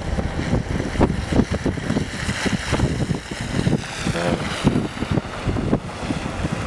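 Gusty wind buffeting the camera microphone: an uneven low rumble with sharp surges, and a broader rushing hiss swelling in the middle.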